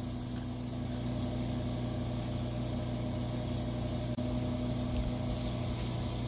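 A steady low electrical hum, as from a motor or pump running nearby, unchanging throughout.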